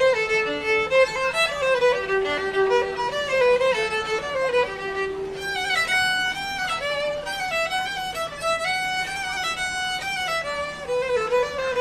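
Solo fiddle playing a quick melody, one pitched line stepping up and down with a steady rhythm.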